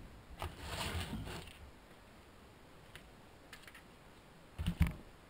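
Battery packs being handled on a workbench: a brief rustle and scrape about a second in, then a couple of sharp knocks near the end as a pack is set down or picked up.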